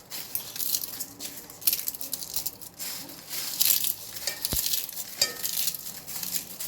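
Crisp dry-roasted whole spices and bay leaves rustling and crackling as they are crumbled and stirred by hand in a kadai, with one sharp tick about four and a half seconds in.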